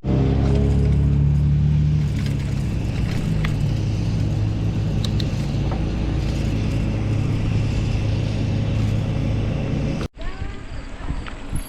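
A motor vehicle's engine running with a steady low hum, loudest in the first two seconds, then breaking off abruptly about ten seconds in.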